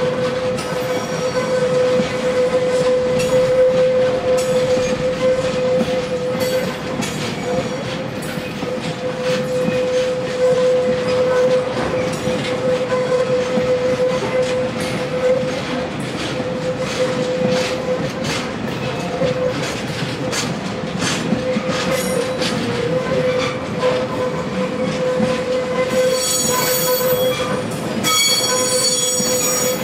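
Taki 1000 oil tank wagons rolling slowly past, wheels clicking over rail joints, with a steady tone running under it. A high-pitched wheel squeal rises near the end as the DD51 diesel locomotive draws close.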